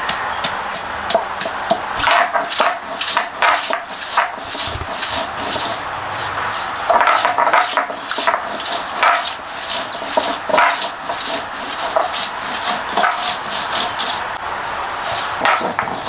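Garlic cloves being crushed and ground on a flat stone grinding slab (shil) with a hand-held stone roller (nora): a run of irregular knocks and crunching, scraping strokes of stone on stone.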